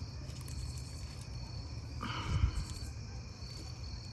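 Crickets chirping steadily in the background, over a low handling rumble, with a brief rustle about two seconds in.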